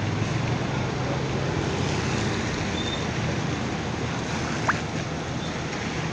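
Bus engines running in a steady wash of traffic noise, with a low engine hum that eases after about two seconds. A brief rising squeak sounds about three-quarters of the way through.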